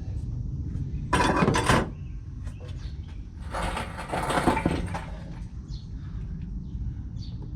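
Metal clattering and rattling in two short bursts, about a second in and again around three and a half seconds, over a steady low rumble.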